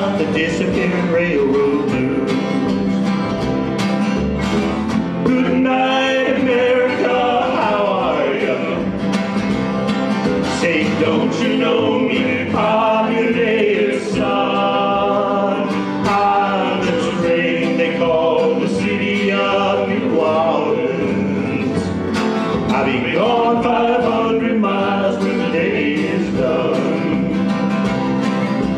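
Live acoustic folk music: three acoustic guitars strummed while men sing together into microphones.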